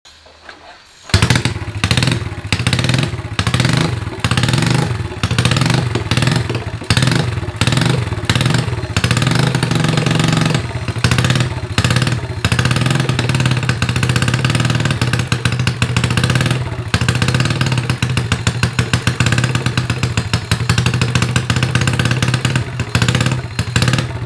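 Custom street cub drag bike's vertical motorcycle engine starts about a second in and is then revved repeatedly with the throttle, its level rising and falling in quick surges.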